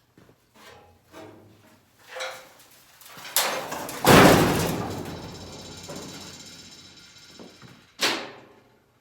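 Welded steel floor frame being handled and set onto the truck chassis: a few light knocks, then a loud metal clang about four seconds in that rings on and fades over several seconds, and another sharp clank near the end.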